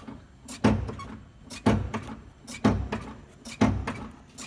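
Clutch pedal of a Nissan 350Z/Infiniti G35 being pumped by foot while the clutch hydraulics are bled: four thumps, about one a second.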